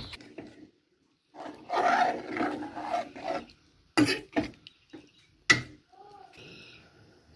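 A metal spoon stirring fish curry in a metal pot: a rough scraping stretch lasting about two seconds, then a few sharp clinks of the spoon against the pot.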